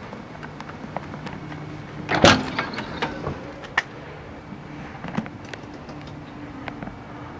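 Smeal fire engine's cab door being opened, its latch and door clunking about two seconds in, with scattered light clicks and knocks of handling around it, over a low steady hum.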